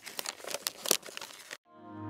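Scratchy, crinkling sound effect made of irregular clicks and rustles, which stops about a second and a half in. Music of sustained, steady tones then fades in.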